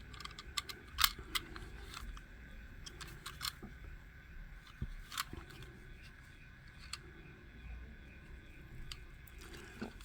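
Scattered small clicks and taps of a 1:64 diecast toy car being handled, the loudest about a second in.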